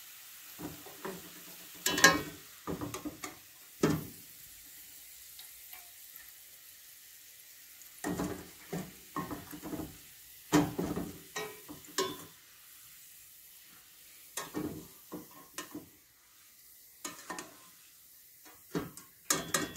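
A metal skimmer scraping and clinking against a steel frying pan as deep-fried onions are lifted out of hot oil, in irregular clatters, the loudest about two seconds in. Hot oil sizzles faintly underneath.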